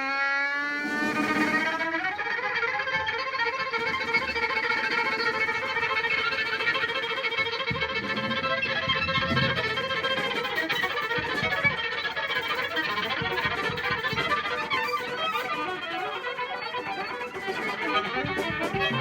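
Live band music: a sustained lead line, violin-like, slides up in pitch right at the start and then holds a long note over the rest of the band.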